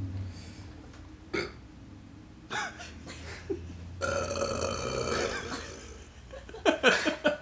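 A man belching in a burping contest. A few short burps come first, then about four seconds in one long, drawn-out belch of nearly two seconds. A quick run of short, louder bursts follows near the end.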